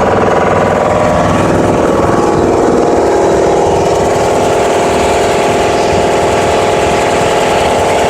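Gas engine of a natural gas compressor package running after a restart, a loud steady engine note whose pitch shifts and settles about two to three seconds in.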